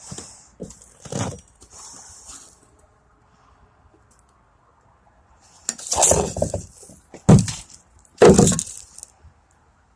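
Heavy knocks and crashes of hard material: a few lighter knocks, then three loud crashes about a second apart in the second half.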